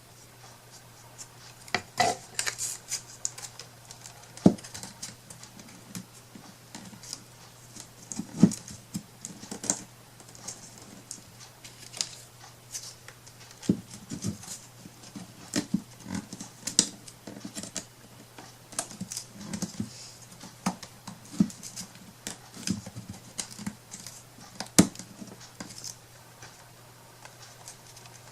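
Irregular small taps, clicks and scratching of hands handling craft materials and tools on a work surface, over a faint steady low hum.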